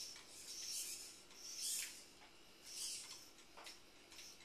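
Joint motors of a TETRIX-kit robotic arm whirring in several short, high-pitched bursts as the arm swings up to an upright position.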